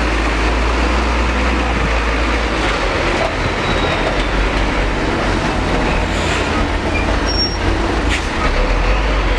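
Heavy diesel engine of a Hino 500 truck running loudly as the truck creeps past close by, a steady low rumble.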